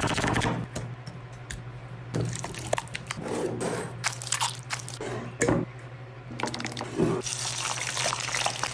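Wet kitchen sounds of chicken being handled in a curry marinade: dripping and squelching with scattered clicks and taps, over a steady low hum.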